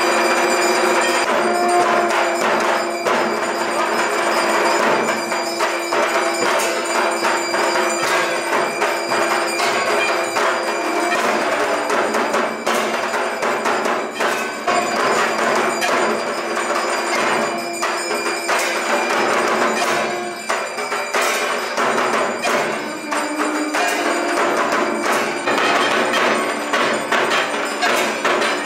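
Aroti accompaniment of brass hand cymbals (jhanj) clashing rapidly, a hand bell ringing and dhak drums beating, a dense continuous percussion.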